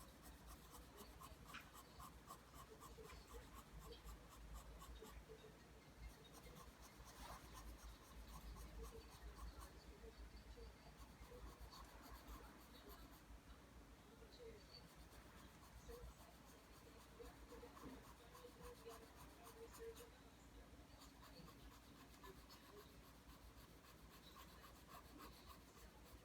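Pencil drawing lines on paper: faint, quick scratchy strokes repeated in a continuous run.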